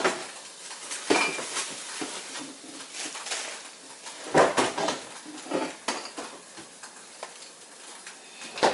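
Rummaging in a refrigerator to take out a bag of broccoli: scattered knocks and clinks of items being moved about, loudest about four and a half seconds in.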